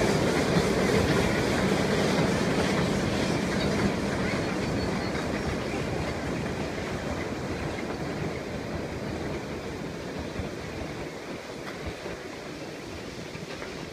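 Puffing Billy narrow-gauge steam train rolling across a wooden trestle bridge: a steady rumble and clatter from the carriages that fades as the train draws away.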